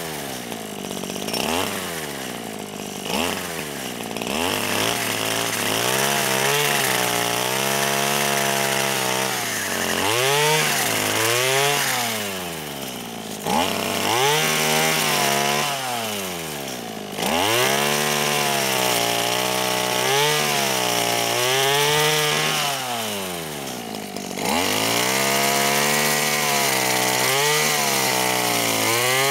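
Homemade chainsaw, a small two-stroke brush-cutter engine driving a chain saw bar through an angle-grinder gear head, cutting saplings. The engine pitch swings up and back down over and over as it is throttled and the chain bites into the wood.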